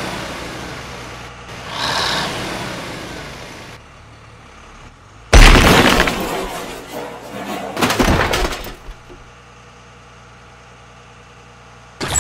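Crash sound effects for a toy-truck collision: a sudden loud crash with breaking and shattering about five seconds in, then a second smaller crash near eight seconds. Both fade away quickly.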